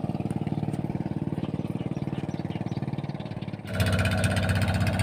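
A small engine running steadily with an even pulsing beat, which suddenly gets louder and fuller about three-quarters of the way through.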